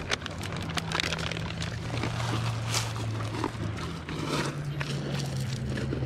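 A dog eating food from a hand on beach pebbles: scattered small clicks and crunches of chewing and stones shifting under its paws, over a steady low hum.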